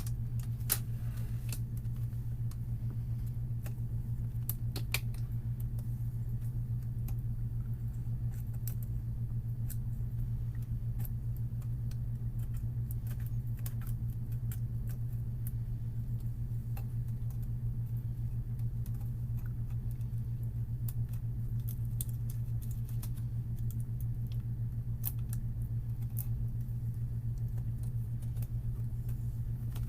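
Scattered light clicks and ticks of a plastic pick prying the snap-in clips of a laptop's plastic screen bezel, over a steady low hum.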